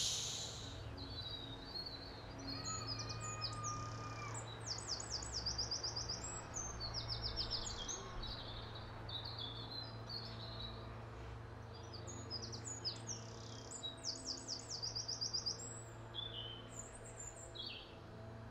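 Garden ambience of several small songbirds chirping and singing quick trills on and off, over a steady low hum that may be a distant lawnmower.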